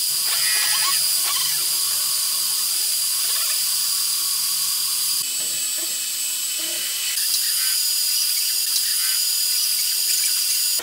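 Metal lathe turning down a welded steel gearbox shaft: the spindle running and the cutting tool taking a steady cut, a high whine over hiss. The tone shifts about five seconds in and again about two seconds later.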